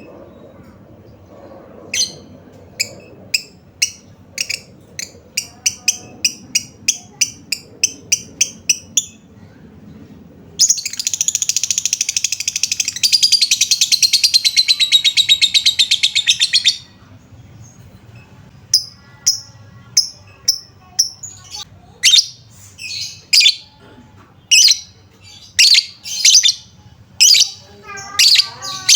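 Lovebird calling: a run of short, sharp chirps that come faster and faster, then a long rapid trill lasting about six seconds, then further separate chirps.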